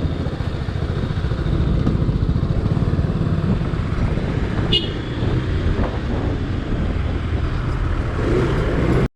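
Motorcycle engine running steadily on the road, a dense low rumble. There is a brief high tone about halfway through, and the sound cuts off abruptly at the end.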